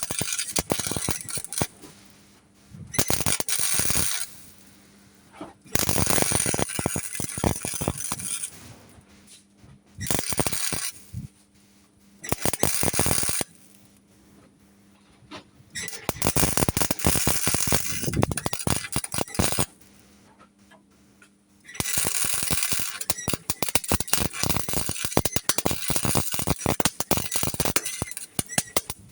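MIG welder laying short bursts of weld with the shielding gas off: a dense crackling and spitting that starts and stops about seven times, each run lasting one to several seconds. A faint steady hum sits underneath.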